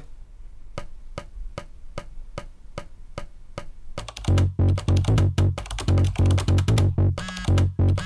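Pencil tapping on a tabletop in a steady beat, about two and a half taps a second. About four seconds in, an electronic music track built from computer-keyboard clicks and a heavy bass beat kicks in.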